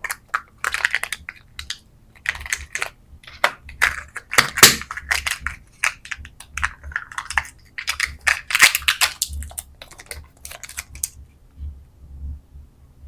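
Quick, irregular clicking and crinkling of candy and plastic packaging being handled and opened. It is busiest in the middle and stops about eleven seconds in.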